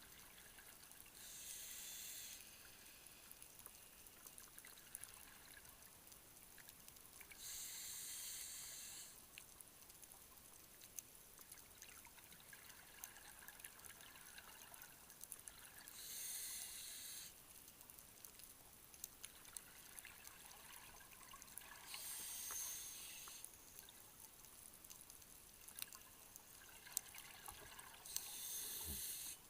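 Scuba diver breathing through a regulator underwater: a hissing inhalation about every six seconds, five in all, with quieter rushing bubbles of exhaled air between them, over faint scattered clicks.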